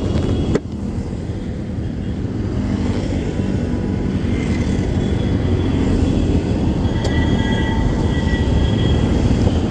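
Royal Enfield Continental GT 650's parallel-twin engine running under way, with wind and road noise. A sharp click comes about half a second in, after which the engine sound builds up gradually over the next few seconds.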